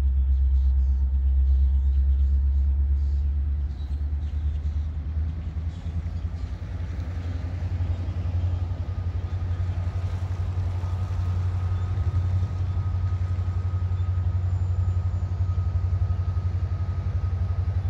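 Diesel-electric freight locomotive approaching slowly, its engine a steady low rumble. A faint thin steady tone rises above it for a few seconds midway.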